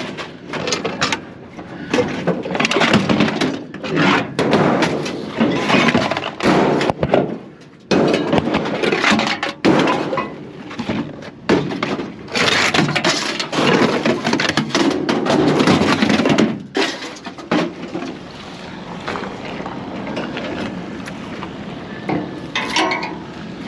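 Scrap being handled: irregular clattering, knocking and scraping, loud and almost continuous, easing to a lower, steadier scraping about 18 seconds in.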